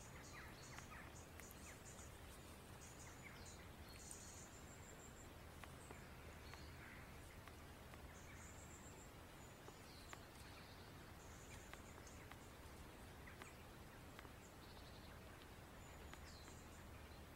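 Near silence in woodland: faint small birds chirping in short high trills every few seconds over a steady low hum, with a few faint clicks.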